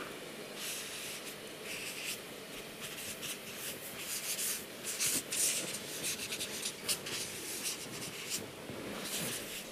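Two felt-tip markers, one black and one red, drawn at the same time across flip-chart paper by both hands. The tips scratch in quick, irregular strokes.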